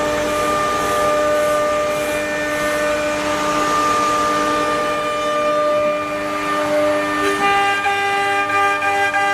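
Wood CNC router running: a steady whine of several held tones from the spindle and drive motors over a hiss of cutting, with the pitches shifting about seven seconds in as the machine changes its motion.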